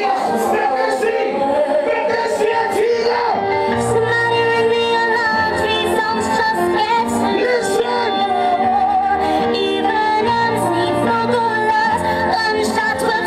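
Recorded song played loud over a sound system: a sung vocal over a backing track with regular percussion, and a deep bass line coming in about four seconds in.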